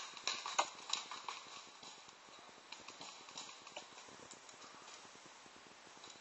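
Paintball markers firing: a run of sharp pops, quick and irregular at first, then sparser, dying away about four seconds in.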